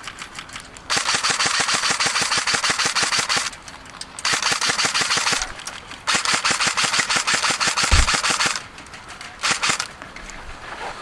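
Airsoft rifle firing on full auto: three long rapid bursts of clicking shots, then a short one near the end, with a single dull thump about eight seconds in.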